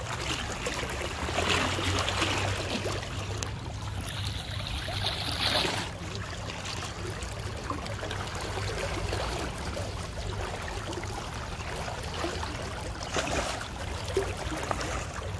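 Shallow river water running and rippling steadily, swelling louder a couple of times in the first six seconds.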